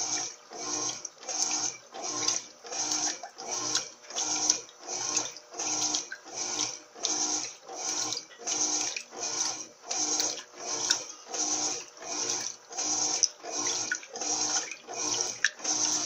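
Electrolux Turbo Limpeza 8 kg top-loading washing machine agitating a water-filled load of bedding: rhythmic sloshing and swishing of water and laundry, about two strokes a second.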